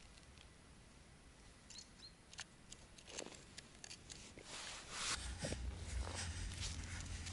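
Handling and movement noise from the person filming: clothing rustling, snow crunching and knocks on the microphone. It is faint for the first few seconds, with two faint high chirps about two seconds in, then grows louder, with a low rumble over the microphone from about five seconds.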